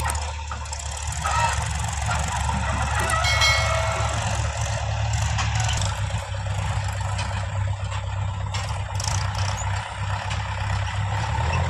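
Diesel engines of a JCB 3DX backhoe loader and farm tractors running steadily as a low drone. A brief high whine comes in about three seconds in.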